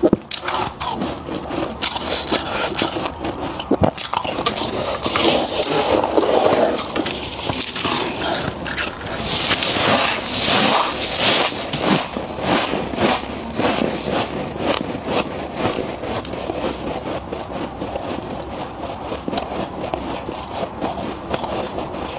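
Soft freezer frost scraped by gloved hands from the inside of a chest freezer and crunched while being eaten: a dense, continuous run of crisp crackles and crunches, louder and hissier for a couple of seconds about ten seconds in.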